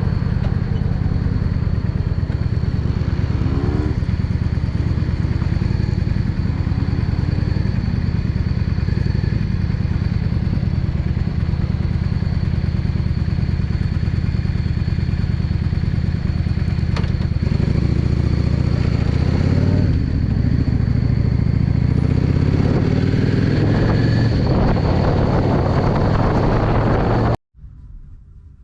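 Yamaha Drag Star V-twin motorcycle engine running, its revs rising and falling a few times, before the sound cuts off abruptly near the end.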